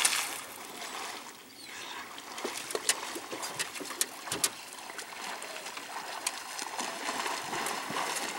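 The splash of a person jumping into the creek fades away in the first half-second. Then water laps and sloshes steadily, with a few sharp clicks about three and four seconds in.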